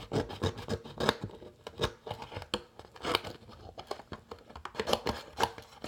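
Small spring-loaded scissors of a Swiss Army multi-tool snipping through thin paper: a run of quick, irregular snips and paper rustles, cutting easily.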